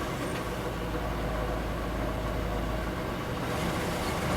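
Ford Ranchero's carbureted engine idling steadily, with a low, even rumble.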